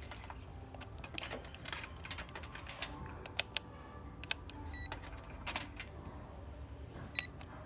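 Scattered small clicks and plastic handling noises as a multimeter is picked up and its selector dial turned toward the continuity setting, with a couple of very short electronic chirps.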